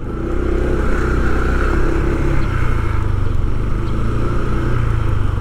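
Motor vehicle engine running steadily with road and wind noise, heard from a moving vehicle.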